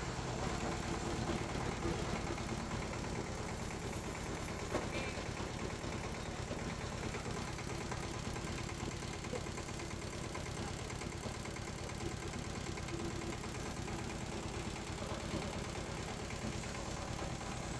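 Floating fish-feed pellet extruder machine running steadily, its drive giving an even engine-like drone with a low, rapid pulsing throughout.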